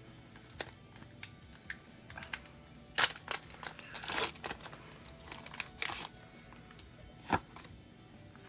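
Foil booster-pack wrapper being torn open and crinkled, with short rustling bursts in the middle and scattered light clicks of cards being handled.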